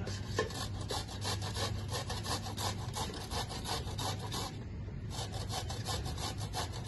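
White radish (mooli) being grated by hand on a flat metal grater: a quick run of rasping scrapes, about three or four strokes a second, with a brief pause about four and a half seconds in.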